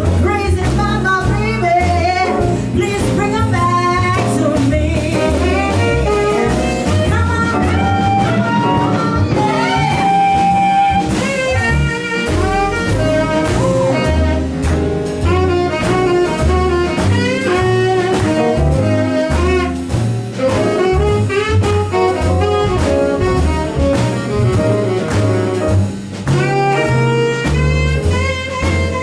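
Live jazz band playing a slow blues, with a melodic saxophone solo over a walking double bass line.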